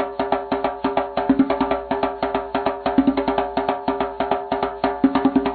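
Background music: a fast, even run of percussive clicks over steady pitched notes.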